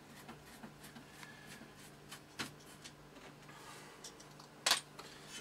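Faint scraping and small clicks of a screwdriver working screws and metal parts being handled in an opened desktop computer case, with a sharper click about two and a half seconds in and a louder one near the end.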